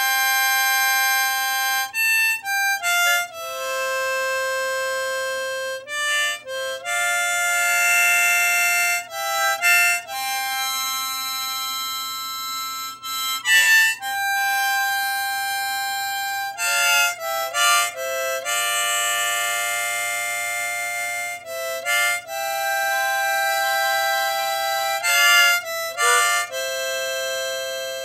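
Harmonica playing held chords, several notes sounding together, each chord lasting from about a second to a few seconds, with short breaks between them.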